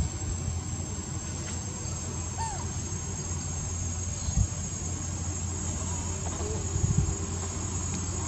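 Insects droning steadily at a high pitch over a low rumble, with a few faint short chirps.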